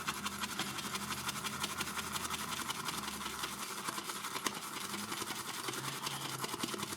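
Boar-bristle shaving brush whisking soaked shaving soap in a bowl with quick, steady, scratchy strokes, building lather from a soap wetted with only half a teaspoon of water.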